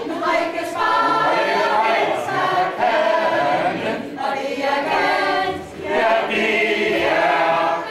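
Mixed choir of women's and men's voices singing a song together, with a short pause between phrases about six seconds in.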